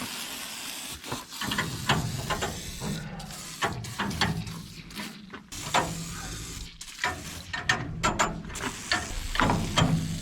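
Metal clicking and clattering from hand tools working on machinery, with a hiss in the first second or so.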